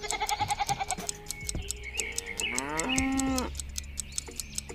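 Farm animal calls: a short quavering call at the start, then a longer call that slides down in pitch about three seconds in.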